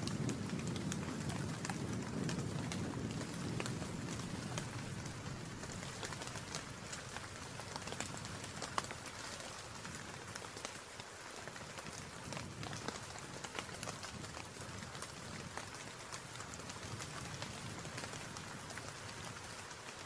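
Steady rain, with many individual drops ticking on a hard surface. A low rumble sits under it for the first few seconds, then fades.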